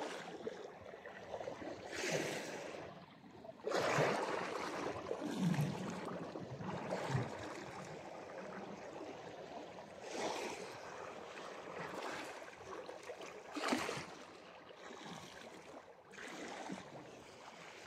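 Small sea waves washing and splashing against a rock edge, coming in surges every few seconds.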